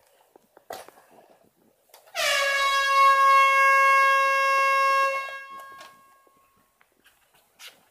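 Air horn giving a single blast of about three seconds, starting about two seconds in; its pitch dips slightly at the onset, then holds steady before it cuts off.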